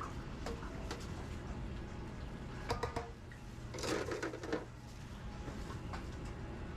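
Restaurant kitchen noise: a steady low hum of kitchen equipment, with a few sharp clicks and knocks about three seconds in and a short burst of clattering a second later.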